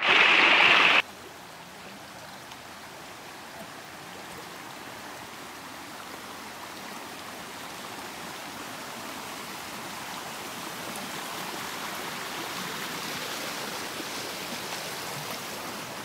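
A mountain stream rushing over rocks. The water is loud and close for about the first second, then settles into a steady, softer rush that slowly grows louder.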